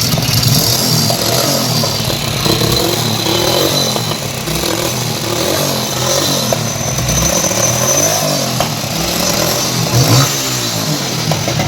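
Hero Splendor Plus motorcycle's single-cylinder four-stroke engine running and being revved up and down several times, with excessive mechanical noise from inside the engine. The mechanic takes the noise as a reason to open the engine, naming the bore and timing chain among the parts to renew.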